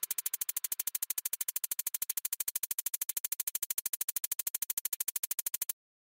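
Synthesizer tone pulsing rapidly and evenly, about a dozen pulses a second, cutting off suddenly near the end.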